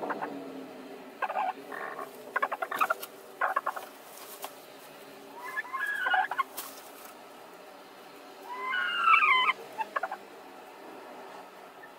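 Two laying hens in a straw nest box: short rustles and taps in the straw, a brief call about six seconds in, and a longer, louder hen call about nine seconds in as the two jostle for the same nest.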